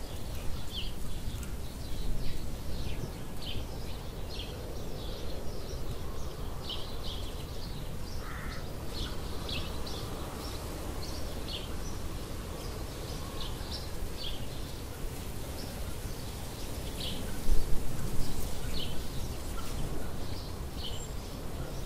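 Outdoor ambience of small birds chirping, short high calls scattered every second or so, over a steady low rumble. A brief louder low bump comes late on.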